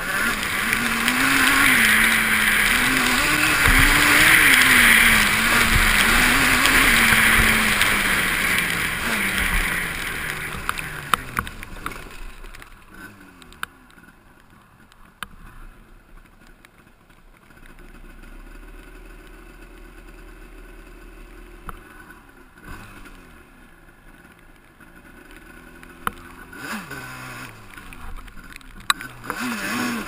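Quad (ATV) engine under way, its pitch rising and falling as it revs, with a loud rushing noise over it. After about twelve seconds it drops to a quieter, steadier low run with scattered knocks and rattles, then picks up again near the end.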